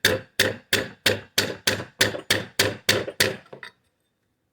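Small hammer tapping a part into an AR-15 lower receiver: a quick, even run of about a dozen sharp metallic taps, roughly three or four a second, stopping near the end.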